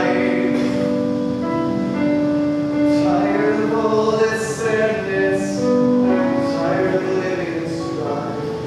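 An improvised song: a voice singing long held notes over live keyboard accompaniment.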